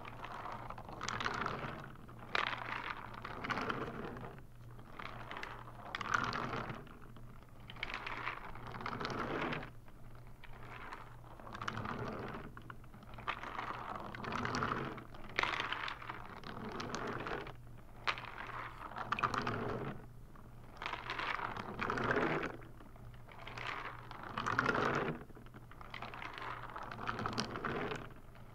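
Loose brown filling sliding from end to end inside a clear bottle as it is tipped back and forth close to the microphone. It comes as a rushing swell about every one to two seconds.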